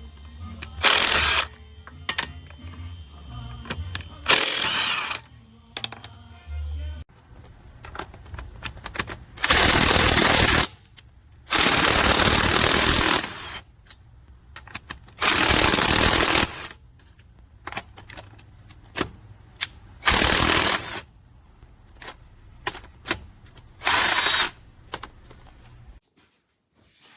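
20V brushless cordless impact wrench hammering in repeated bursts of about one to one and a half seconds, driving lug nuts on a truck wheel.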